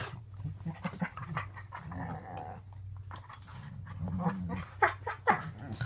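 Dogs growling low and continuously as two dogs tussle on a dog bed, with rustling and mouth clicks. A couple of short, higher cries come about five seconds in.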